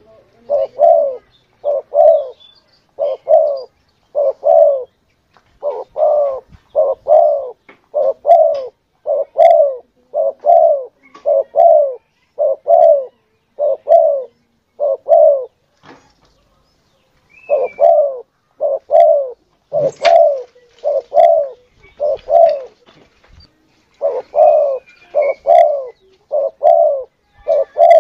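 Spotted dove (tekukur) cooing in a long run of short, repeated coos, with a brief pause about two-thirds of the way through. This is a hunter's lure call used to draw doves in.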